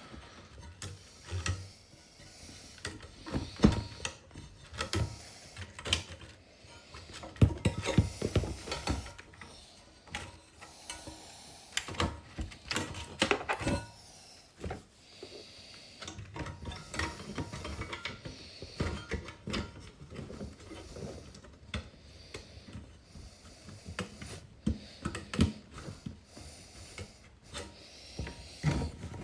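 Hands refitting a car's plastic display unit and dash trim: irregular clicks, knocks and rubbing of brittle plastic parts, with a few louder knocks.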